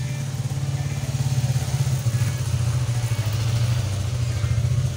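Motorcycle engine running at idle: a steady, low, fast putter that swells a little in the middle.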